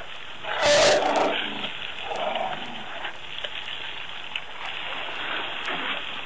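African elephant calling: a loud roar about half a second in, lasting about a second, followed by quieter, lower calls around two seconds in.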